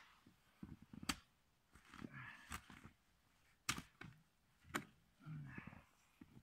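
Shovel digging snow around a stuck motorcycle: four sharp strikes of the blade, roughly a second apart, with softer scraping and shifting of snow between them.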